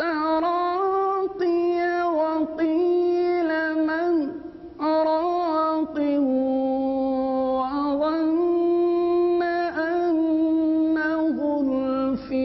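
A man reciting the Quran in Arabic in slow, melodic tajweed style, drawing out long held notes with gliding ornaments, with a short breath pause about four seconds in.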